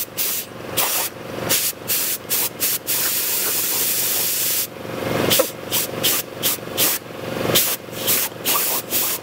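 Compressed air hissing from an air compressor's hose in short puffs, two to three a second. About three seconds in it becomes one continuous blast lasting nearly two seconds, then goes back to quick puffs.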